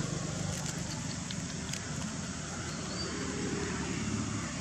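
Steady low background rumble with a fainter hiss, with no calls from the monkeys.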